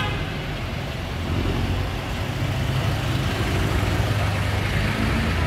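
Street traffic: a passenger jeepney's diesel engine runs close by as it drives past, over a steady low rumble of other vehicles.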